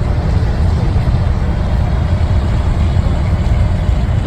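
Steady rainy street ambience: a constant low rumble with an even hiss over it, with no distinct events.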